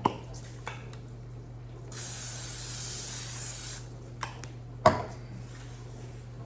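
Aerosol spray can sprayed in one steady hiss lasting about two seconds. There is a sharp knock at the start and a louder knock about five seconds in.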